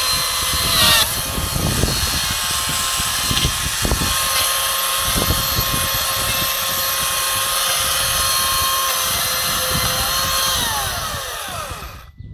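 Chainsaw running at a steady high speed while it cuts the branches off a felled spruce, its pitch dipping briefly under load about a second in. Near the end it winds down and stops.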